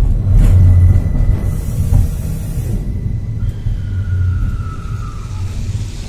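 Tram running along its track, heard from inside the car: a steady low rumble of wheels on rails, with a thin whine in the first half and another whine that falls slightly in pitch about halfway through, plus a short burst of hiss.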